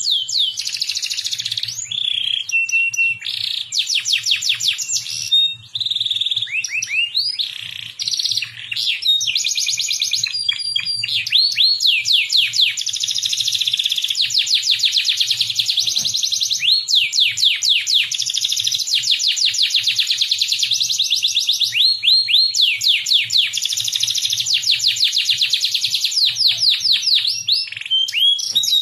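Domestic canary singing a long song of rapid trills, each a run of quickly repeated notes, changing from one trill to the next, with brief pauses about six and eight seconds in.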